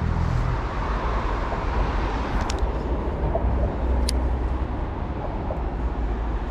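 Steady road traffic noise with a low rumble, with two sharp clicks, about two and a half and four seconds in.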